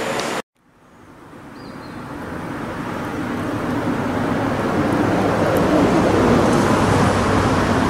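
A steady, even rushing noise that fades in over the first few seconds after a half-second drop to silence, then holds steady.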